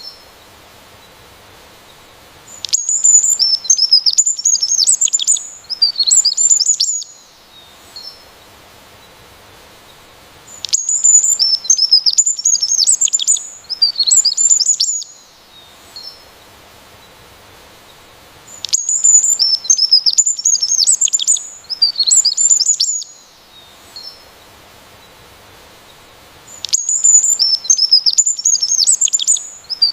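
A songbird singing bursts of high, quick chirps and trills, each about four seconds long, repeated four times about every eight seconds with quiet pauses between.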